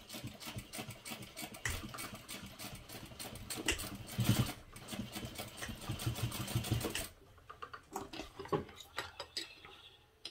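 Industrial sewing machine stitching fast and steadily across a dog collar strap, sewing a single line with a backstitch, and stopping abruptly about seven seconds in. A few light clicks follow.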